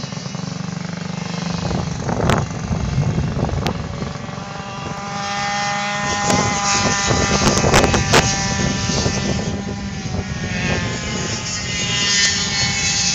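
Yamaha two-stroke go-kart engine running on track, its pitch rising and falling as the kart speeds up and slows through the corners, loudest as it passes close about six to eight seconds in. A few sharp knocks are heard over it.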